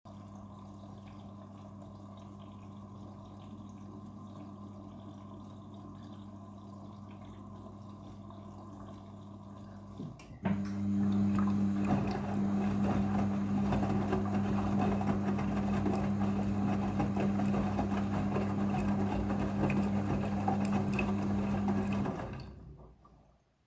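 Midea front-loading washing machine in its rinse cycle: a steady electric hum with water rushing through it. About ten seconds in it jumps much louder and stays so, then dies away shortly before the end.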